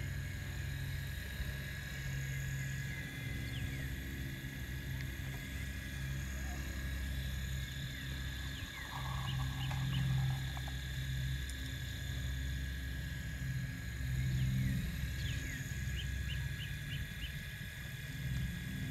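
Radio-controlled Cat hydraulic excavator working, a low steady hum from its pump and drive that swells each time the boom and bucket move, louder about ten seconds in and again near the end. Short high chirps sound over it.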